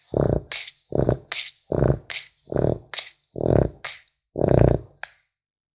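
French bulldog puppy snoring in its sleep: six buzzing snores in a steady rhythm, a little under one a second, with short whistling breaths between them.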